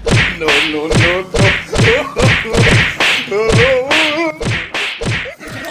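Background music with a fast, steady beat of about three hits a second under a warbling tune.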